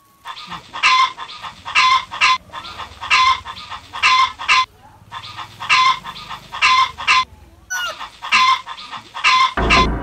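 Background music with a steady, repeating beat. A deep bass comes in near the end.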